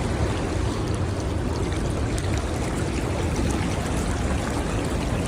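Creek water rushing steadily over rocks, an even hiss with a deep low rumble underneath.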